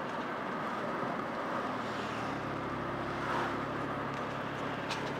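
Steady road and engine noise inside a moving vehicle's cabin, with a low engine hum that settles into a steady drone about two seconds in.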